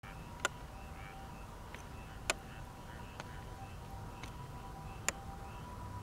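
Faint night-time outdoor ambience: two thin steady tones and short chirps about twice a second over a low rumble, broken by five sharp clicks.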